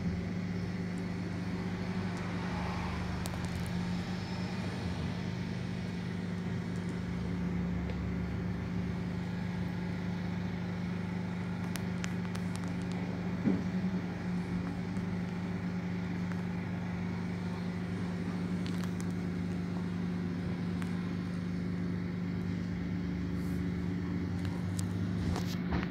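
Cabin noise of an articulated city bus on the move: a steady hum from the drive over rolling and road noise, with a single knock about halfway through.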